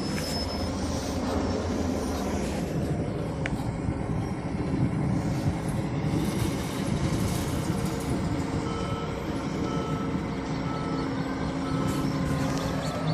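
Heavy diesel machinery running steadily with a constant low rumble. From about two-thirds of the way in, a faint high beep repeats at an even pace.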